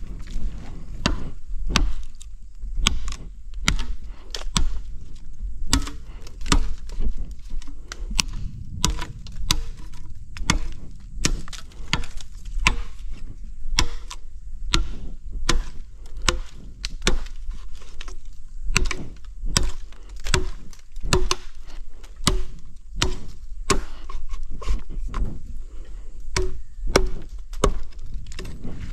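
Bamboo being chopped with a blade: repeated sharp strikes, about one or two a second with short pauses, some leaving a brief hollow ring.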